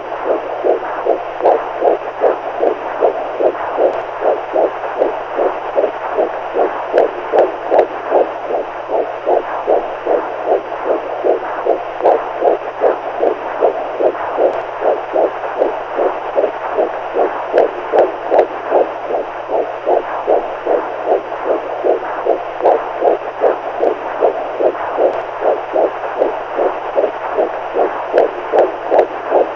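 Heartbeat sound: soft beats repeating at an even, unchanging pace over a constant background hiss.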